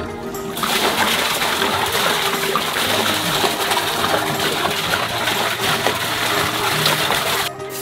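Soda pouring in two thick streams from large plastic bottles into a big hollow container: a steady gush that starts about half a second in and cuts off shortly before the end.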